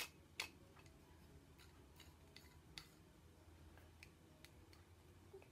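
Faint clicks of hard plastic LEGO Hero Factory/Bionicle parts being handled and fitted together: two sharper clicks at the start, then scattered soft ticks over near silence.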